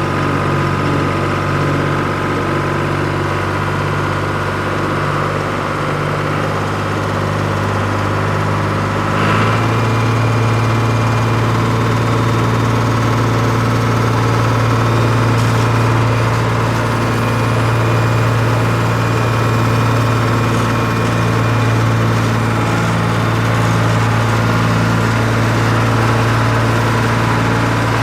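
Tractor engine running steadily at low speed; about nine seconds in its note shifts and grows a little louder, then holds steady.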